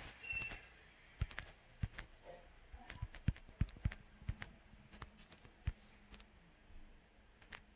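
Scattered light clicks and taps coming irregularly, a few a second at times, in a small room.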